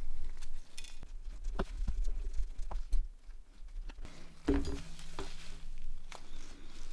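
Scattered light clicks and taps of a disassembled smartphone's plastic parts and tools being handled on a work surface, with one louder knock about four and a half seconds in.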